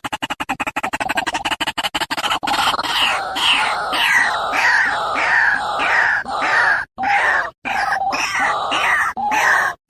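Male white-breasted waterhen calling. It opens with a fast stutter of rapid pulses for about two seconds, then gives a steady series of loud, repeated falling notes about two a second, broken by a few sudden silent gaps.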